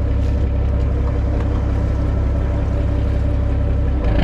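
Fishing boat's engine running steadily: a continuous low rumble with a steady hum above it.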